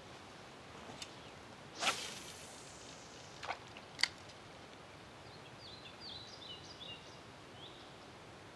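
Quiet outdoor ambience with a few sharp knocks and clicks, the loudest about two seconds in with a brief swish. It is followed by a short phrase of quick, high chirps from a small bird.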